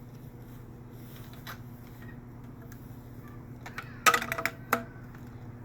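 Sharp clicks and knocks of the vacuum's pipe and union fitting being handled and fitted, with a loud cluster of clatter about four seconds in, over a steady low hum.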